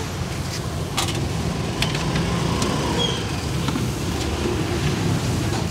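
Steady low rumble of motorbike engines and street traffic, with a few light clicks, about one to three seconds in, from plastic containers being handled.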